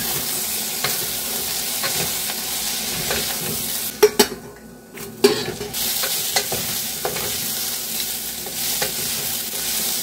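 Chopped jackfruit and onion sizzling in hot oil in a pressure cooker while being stirred with a spatula, which knocks and scrapes against the pot now and then. About four seconds in, the sizzle drops for a moment with a few louder knocks, then carries on.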